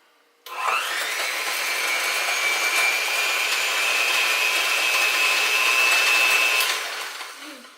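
Electric hand mixer running, its beaters working M&Ms into ice cream. It starts suddenly about half a second in with a short rising whine, runs steadily, and is switched off near the end, winding down.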